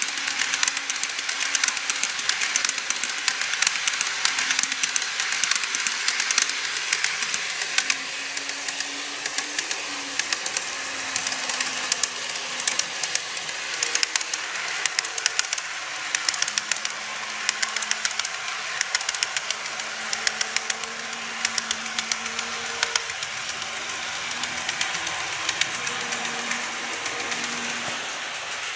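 Model trains rolling on layout track: a fast stream of clicks from the wheels going over rail joints, with a low motor hum that shifts in pitch now and then.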